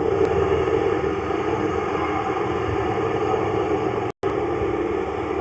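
A steady mechanical drone runs without change, and the sound drops out completely for a split second about four seconds in.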